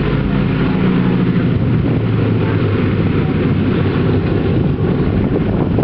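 The B-24 Liberator's Pratt & Whitney R-1830 Twin Wasp radial engines running on the ground with propellers turning, a loud, steady low engine sound.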